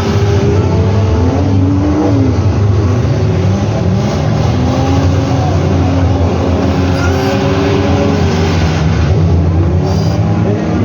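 Several demolition-derby cars' engines running together, revving up and down over a steady loud rumble.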